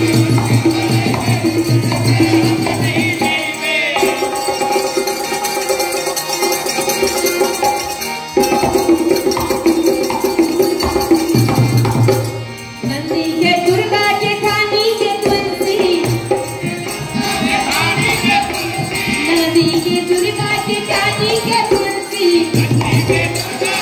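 Live Indian folk song (lokgeet) with harmonium, dholak drum and jingling hand percussion playing together, and a woman singing over them in the second half.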